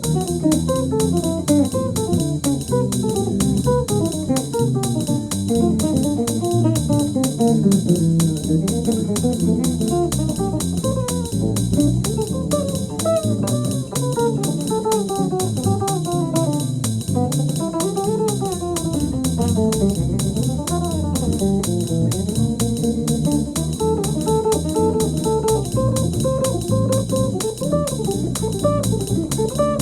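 Jazz guitar playing continuous single-note lines that run up and down in pitch, over a bass and drum accompaniment with a steady beat.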